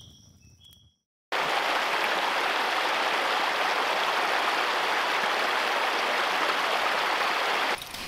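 Rocky creek running: a steady rushing of water that starts abruptly a little over a second in and cuts off just before the end. Before it, faint high-pitched chirps over a quiet background.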